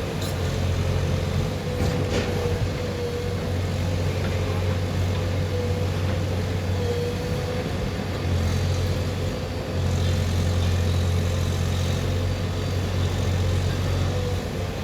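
Diesel engine of a JCB 3DX backhoe loader running steadily with a low hum and a faint steady whine above it, getting a little louder about halfway through and again a couple of seconds later.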